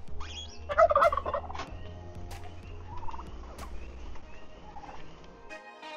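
Domestic turkeys gobbling: one loud rattling gobble about a second in, then fainter calls. A steady low hum runs underneath and stops abruptly shortly before the end.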